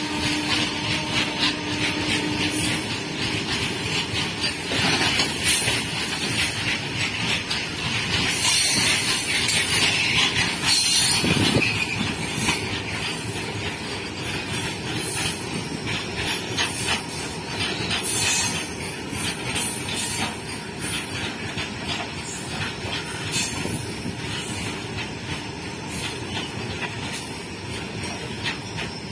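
Freight train of open-top steel wagons rolling past close by: a steady rumble of wheels on rail with rapid clicking as the wheels cross rail joints. It grows louder about eight to twelve seconds in, then eases slightly.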